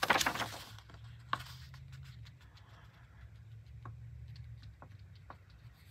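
Sheets of printed paper rustling as they are turned over and shuffled by hand: a burst of rustling at the start, a sharper tap about a second and a half in, then faint crinkles and ticks.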